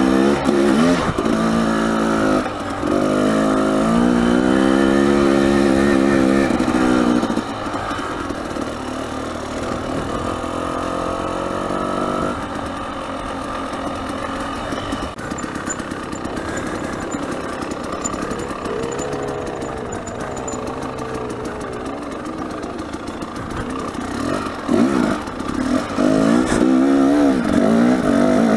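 Dirt bike engine revving up and down with the throttle as the bike rides a rough uphill trail. It runs loud for the first several seconds, drops to a lower, quieter run through the middle, and revs hard again near the end.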